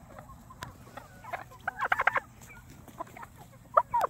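A mixed flock of free-ranging chickens clucking, with short calls from several birds at once. The calls come in clusters, busiest about two seconds in and again near the end.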